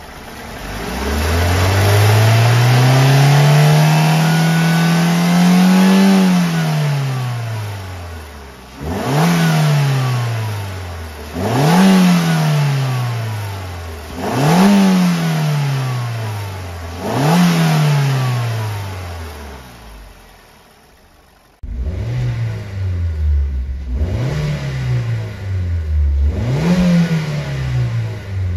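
Suzuki Swift Sport's M16A 1.6-litre four-cylinder engine free-revving with the car standing still. It climbs slowly in one long rev and falls back, then takes four quick throttle blips, each dropping back toward idle. After it settles, it idles with three more short blips near the end.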